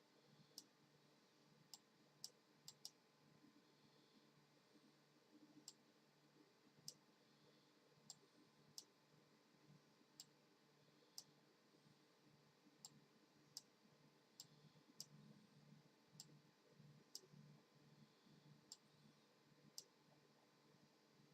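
Faint, sharp clicks at irregular intervals, roughly one a second, over a low hum that pulses steadily.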